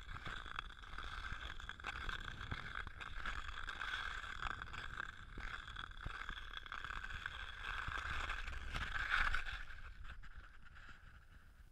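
Ice skate blades gliding and scraping over thick, rough ice glazing a paved path: a steady hiss dotted with small clicks over a low rumble. It swells about nine seconds in and fades near the end.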